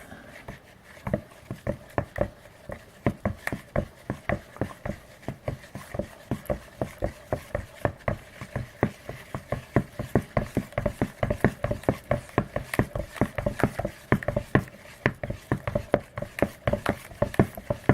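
Mixing tool stirring a runny glue, water and baking soda slime base in a bowl, knocking and scraping against the bowl in a quick, regular rhythm of taps.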